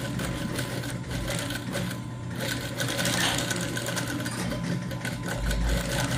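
Industrial sewing machine running continuously, zigzag-stitching the back seam of a shoe upper: fast, even needle ticking over the motor's steady hum.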